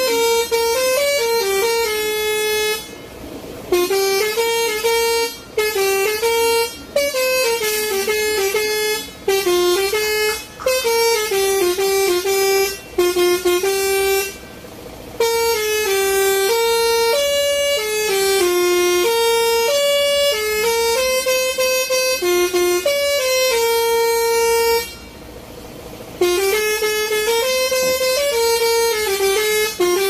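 Lorry's basuri (telolet) musical air horn playing a tune, its notes stepping up and down in phrases with short breaks between them and a longer break about 25 seconds in.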